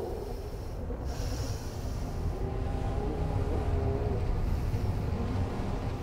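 A steady low mechanical rumble, with a faint hum above it and a hiss that comes in about a second in.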